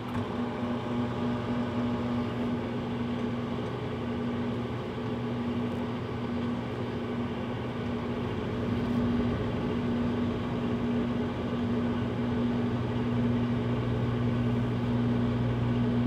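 Microwave oven running, with a steady, even electrical hum.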